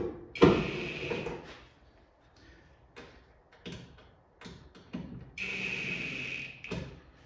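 Cordless drill/driver running in two short spurts, about half a second in and again near the end, each a second or so with a steady whine, driving fasteners into the cowl panel. Light clicks and knocks of handling between the runs.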